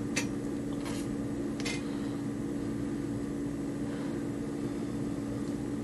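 Steady electrical or mechanical hum of room tone, with a few faint clicks in the first two seconds.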